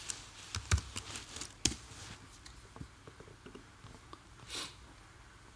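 A few scattered clicks of computer keyboard keys as a command is typed and entered, with a short soft hiss about four and a half seconds in.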